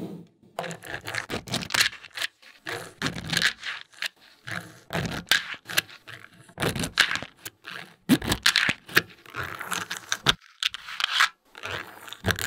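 Small magnetic balls scraping, rattling and clicking against one another as they are pushed and snapped into shape, in irregular bursts with short pauses.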